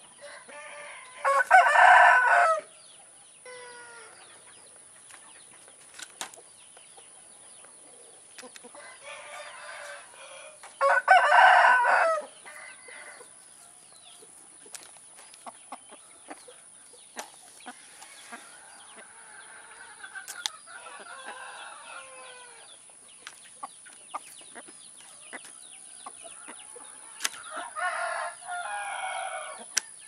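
Phoenix rooster crowing twice, short loud crows about ten seconds apart, with quieter clucking and calls between them and near the end.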